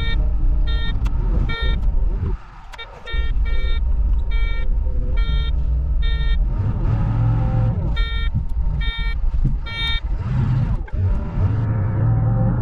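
Loader engine running with a steady low rumble while its reversing alarm beeps in spells of repeated beeps, about two a second, stopping and starting several times as the machine backs up.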